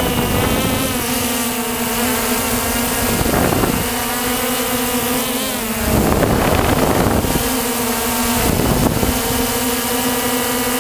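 Walkera TALI H500 hexacopter's electric motors and propellers humming steadily in flight, heard from the onboard camera. Rushes of wind noise on the microphone come about three and a half seconds in, again around six to seven seconds, and near nine seconds.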